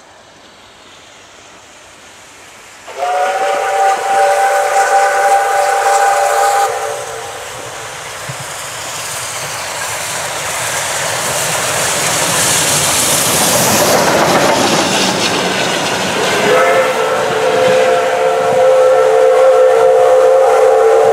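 Soviet P36-class steam locomotive sounding its whistle twice, several notes at once, each blast about four seconds long, the second running into the end. Between the blasts its steam hiss and running noise grow as it approaches and passes.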